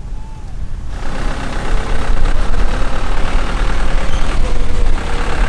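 Light truck engines running: one idling close by while a small flatbed truck drives up and approaches, the engine noise growing louder about a second in.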